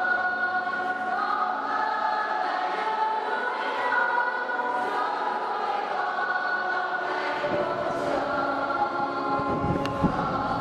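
A group of young communicants singing a slow hymn together, with long held notes. A brief knock sounds near the end.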